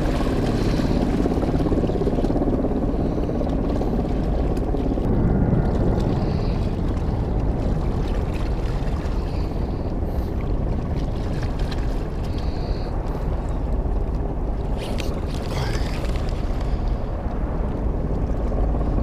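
Steady low rumble of wind buffeting a GoPro's microphone.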